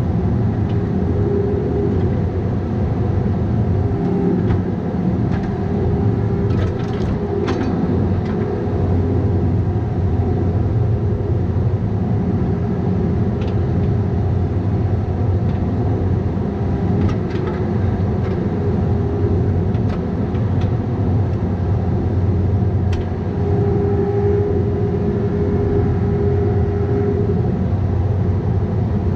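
Bobcat 337G mini excavator's diesel engine running steadily while working, with a few short knocks scattered through and a stronger, higher engine or hydraulic note for a few seconds near the end.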